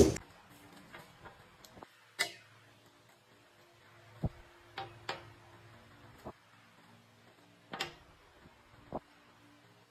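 Scattered light clicks and taps of AA batteries and an LED bulb being handled and set down on a hard tabletop, about eight in all, over a faint low hum.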